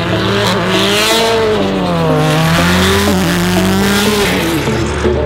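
Race car engines revving hard on track, the pitch rising and falling, with tyre squeal. The engine note changes about three seconds in as a different car comes through.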